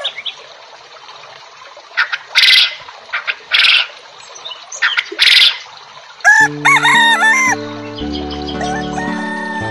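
Chickens calling, with loud squawk-like bursts and then a rooster crowing about six seconds in. Background music with a steady stepped melody comes in at about the same time and continues.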